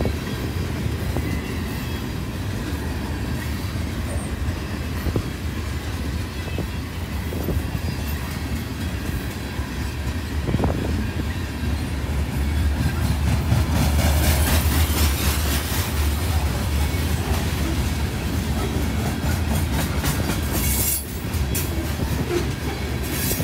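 Freight train of covered hopper cars rolling past close by: a steady low rumble of steel wheels on rail with scattered clacks. It grows louder for a few seconds past the middle, with a hiss on top.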